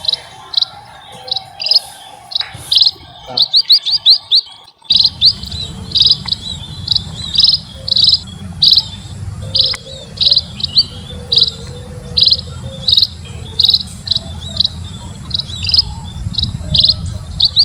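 Munias (emprit) chirping: short high chirps repeated about twice a second, with quick runs of several chirps now and then. A low rumble sits underneath from about five seconds in.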